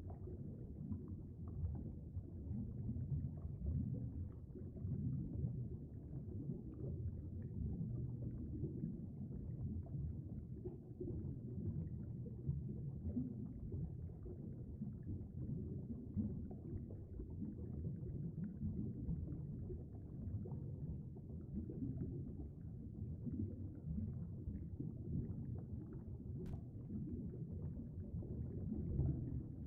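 Muffled, low rumbling water noise of a stream heard by a submerged camera, steady throughout, with a single faint click near the end.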